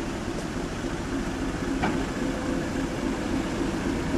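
Class 73 electro-diesel locomotive passing slowly at close range, running on its diesel engine: a steady drone with a single click about two seconds in.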